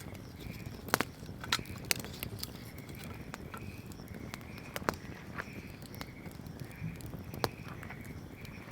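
Wood bonfire burning: a low, steady rush of flame with sharp pops and crackles from the burning wood, the loudest about one and two seconds in. A faint high chirp repeats about twice a second alongside.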